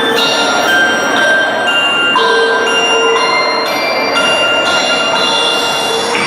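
Bells chiming as a musical introduction: a new ringing note struck about every half second, each note ringing on and overlapping the next.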